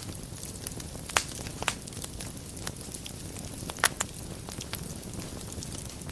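Wood fire in a fireplace burning with a steady low rumble and scattered sharp crackles and pops, three louder snaps about a second, a second and a half, and four seconds in.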